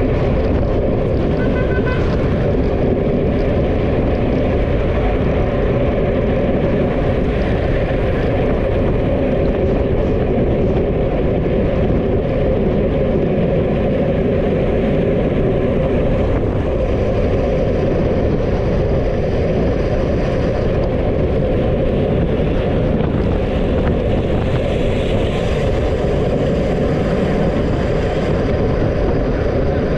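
Steady rush of wind and road noise on a microphone that is moving at speed, even and unbroken, heaviest in the low range.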